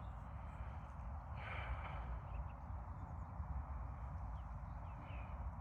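A person's single breathy exhale about a second and a half in, over a steady low rumble on the microphone, with a few faint light ticks later on.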